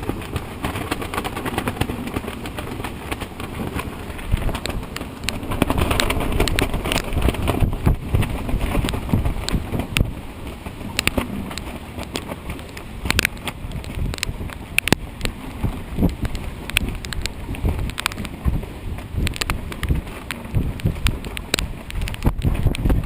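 Hurricane-force wind gusting hard against the microphone, buffeting it unevenly, with many sharp taps and knocks scattered through it.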